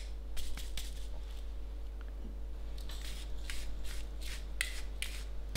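Wooden grinder mill twisted by hand to grind seasoning, giving short rasping strokes: a few near the start, then a quicker run of them in the second half.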